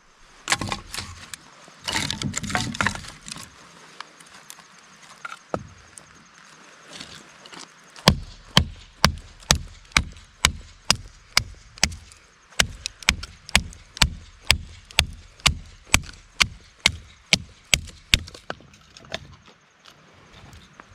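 Repeated hard blows, about two and a half a second, in two runs with a brief pause between them. They sound like a tool striking wood or driving a peg. Before them come a few scattered knocks and rustling.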